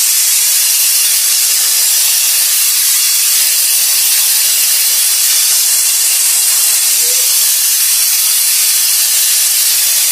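Compressed-air blow gun blowing a continuous, loud, steady hiss, used to blow sawdust and dirt off.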